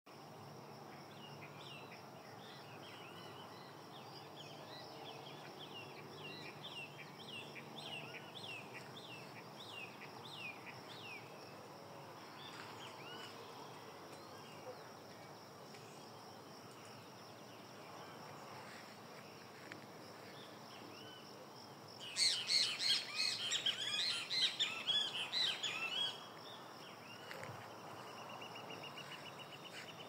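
Wild birds singing: a run of short repeated chirps in the first third, then about two-thirds of the way through a much louder burst of fast twittering lasting about four seconds. A steady, high, pulsing trill begins near the end.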